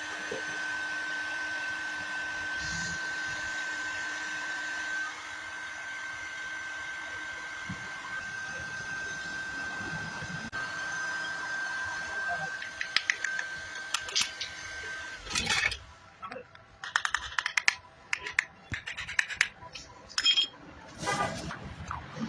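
A small electric fan motor running with a steady hum and a high whine, which cuts off about two-thirds of the way through. Irregular clicks, taps and scraping of parts being handled follow.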